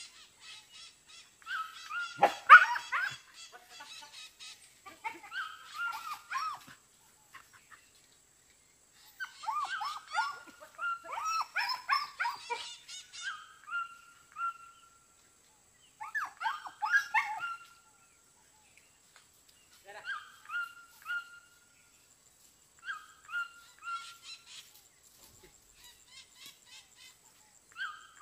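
A dog yelping and whining in repeated bouts of a few seconds, separated by short pauses. Several bouts end in a drawn-out, steady whine.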